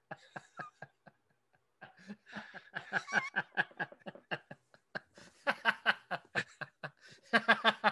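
Laughter in quick, short repeated bursts that grow strongest about two-thirds of the way in and again near the end.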